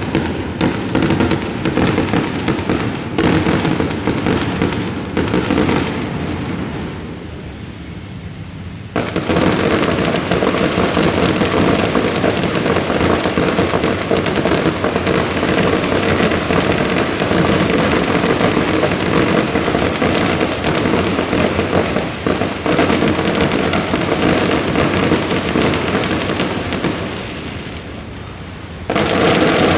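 Fireworks crackling and popping in a dense, rapid stream of sharp reports. The stream eases off about six seconds in, comes back abruptly about three seconds later, and eases again near the end.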